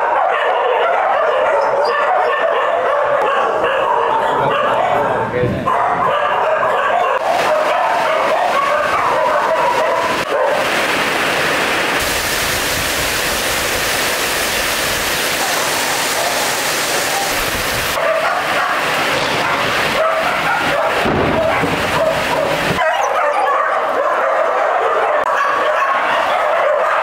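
Many dogs barking and yipping without a break. For about six seconds in the middle, heavy rain is heard falling over them.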